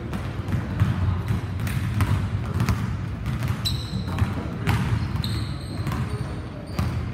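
Basketballs bouncing on a hardwood gym floor: irregular dribbles from more than one player, over a steady low rumble.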